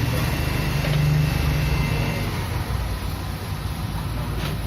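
Steady low rumble of road traffic, swelling about a second in as a vehicle goes by.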